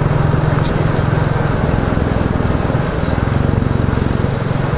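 Royal Enfield Classic 350's single-cylinder engine running through a Hitchcock's de-cat exhaust pipe while the bike is ridden at steady speed, a rapid even thumping. The engine note drops briefly about halfway through, then picks up again.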